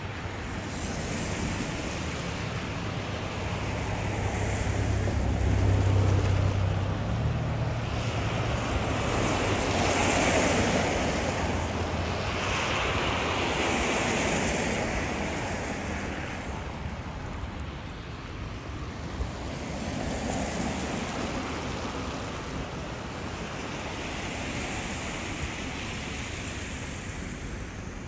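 Vehicles passing one after another on a snowy city street. Their tyre hiss swells and fades several times, and a low rumble rises and falls with one pass about six seconds in.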